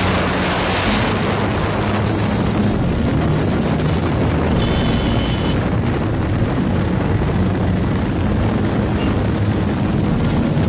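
Motorcycle engines running and wind buffeting the microphone while riding on a highway. Two short high whistles sound about two and three seconds in.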